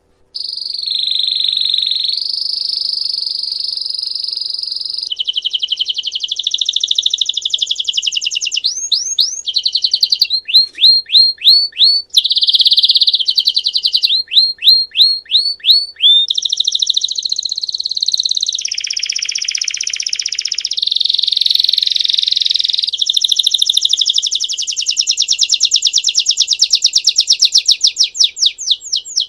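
Belgian canary singing a continuous bell-type ('campainha') song that starts abruptly: long rolling trills and held tours, a run of quick down-sweeping notes about halfway through, and a fast, even trill near the end.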